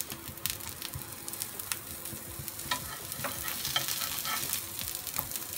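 Aloo tikki (potato patties) sizzling in ghee on a flat non-stick tawa, a steady hiss with scattered sharp clicks and pops as they are turned over with a spatula.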